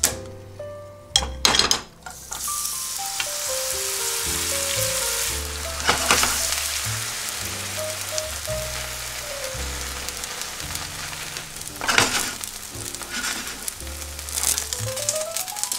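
Seafood, vegetable and mochi chijimi batter sizzling in hot oil in a frying pan as it is spread out with a spoon. A few knocks about a second in come before the sizzle starts, and there are a couple of brief clatters partway through.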